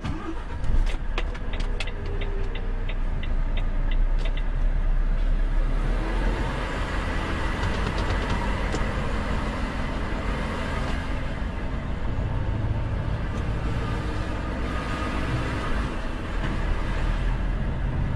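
Volvo truck's diesel engine pulling away and running on under load, a steady low rumble that grows louder about a second in. Through the first few seconds an even clicking ticks about three times a second.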